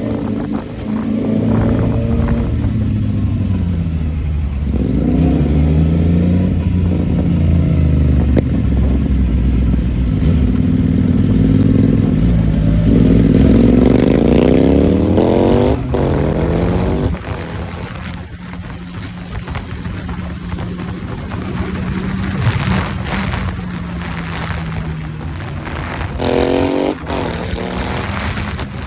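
Motorcycle engine running under way, its revs rising and falling through gear changes, with a sharp climb in revs about halfway through and another near the end.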